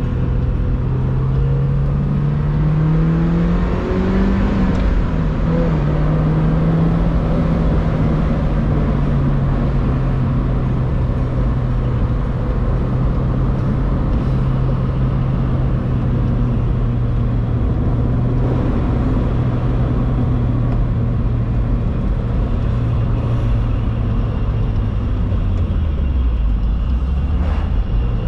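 Mazda Miata NB's four-cylinder engine running while the car is driven. Its pitch rises over the first few seconds, then holds steady, then dips and climbs again near the end.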